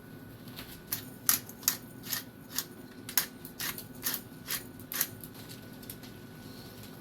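A run of about ten short, sharp scraping clicks, roughly two a second, starting about a second in and stopping about five seconds in.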